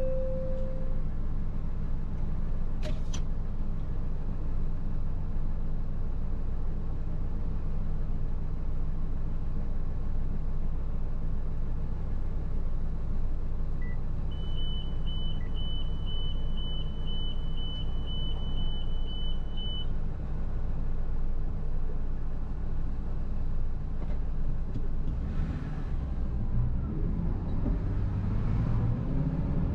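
Pickup truck engine idling steadily, heard from inside the cab. About halfway through, a high electronic beep repeats about twice a second for roughly five seconds. Near the end the engine revs up as the truck pulls away.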